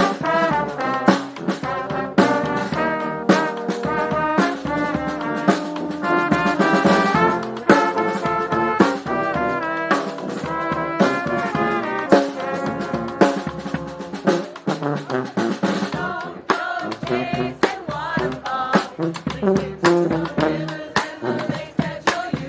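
Brass band playing live: trombones and trumpets in full harmony over a steady drum beat. About two-thirds of the way through the horns ease back and the drums come forward.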